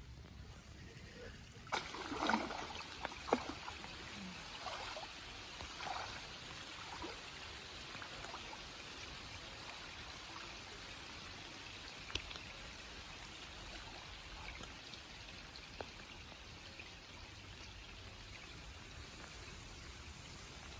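Steady rain falling on open water, with several splashes of water about two to six seconds in and a few single drips or plinks later.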